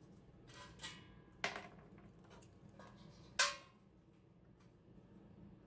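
A handful of light metallic clinks and taps from small metal parts being handled, the loudest about three and a half seconds in, then quiet.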